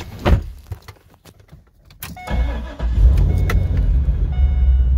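A cammed, A&A-supercharged LS6 V8 in a C5 Corvette Z06 is cranked about two seconds in and catches, then runs in a steady, loud low idle. Before it there are a few clicks from handling in the car, and near the end some short chime tones.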